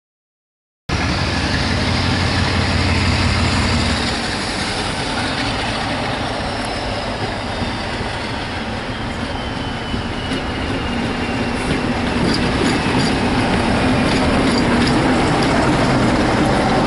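Diesel locomotive hauling a train of coaches past, its engine running with a low steady note, and wheels clicking over rail joints in the last few seconds as the train goes by close. The sound cuts in about a second in.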